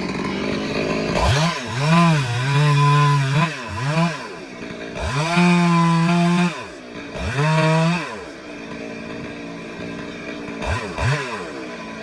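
Stihl two-stroke chainsaw running loud, revved up to a high steady pitch and let back down about four times, with a lower, steadier stretch before the last rev.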